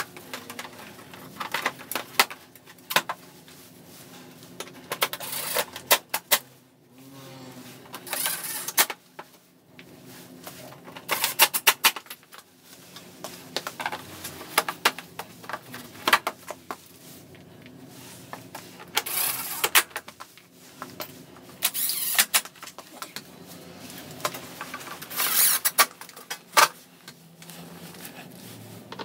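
Plastic body panels of a Daelim Citi Best motorcycle being handled and pressed into place: irregular clicks, knocks and scraping rattles of plastic on plastic and on the frame.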